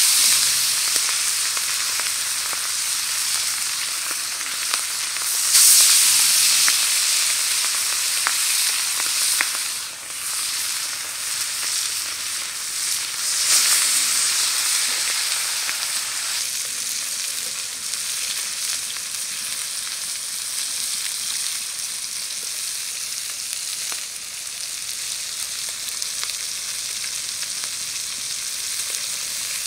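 Whole red pomfret fish sizzling in sunflower oil on a hot flat tawa griddle, a steady frying hiss. The hiss swells louder about five seconds in and again around thirteen seconds, then settles back to a steady sizzle.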